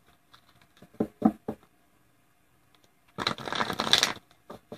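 A deck of tarot cards being handled: a few light taps, then about a second of dense card shuffling.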